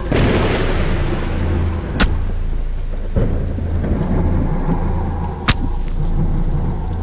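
Recorded horror sound effect: a sudden crash of noise that fades away over about two seconds over a steady low rumble, with sharp cracks about two seconds and five and a half seconds in.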